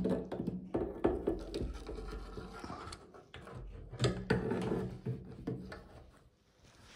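Irregular clicks, light knocks and scraping of hand work, as a new gasket and bolts are fitted to the fuel pump mounting on a refurbished fuel tank.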